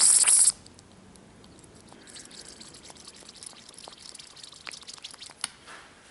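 Compressed air from a blow nozzle hissing through a removed oil pressure switch, which cuts off suddenly about half a second in. Faint scattered ticks and crackles follow as oil bubbles in the switch. Air getting through like this shows the switch is bad and leaking oil.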